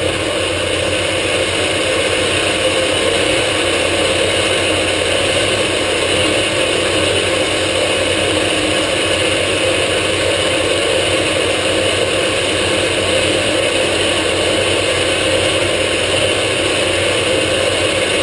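Dodge Ram's 5.9 L Cummins inline-six turbo-diesel idling with a steady, dense clatter just after a cold start. Its exhaust brake is loading the engine, which fades in as the air system builds pressure. The sound swells slightly over the first couple of seconds, then holds steady.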